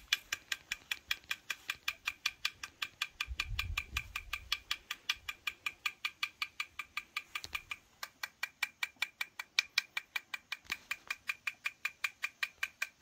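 A steady, even train of sharp clicks, about five a second, with a short break about eight seconds in.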